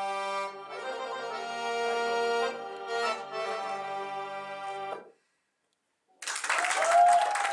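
An Arabic belly-dance song with a sustained melody cuts off about five seconds in. After about a second of silence, the audience breaks into loud applause and cheers.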